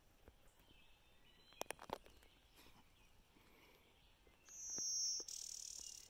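Blue-winged warbler singing its two-part buzzy song once near the end, a thin high buzz followed by a broader, rougher buzz. Faint calls of other birds in the morning chorus and a couple of light clicks come before it.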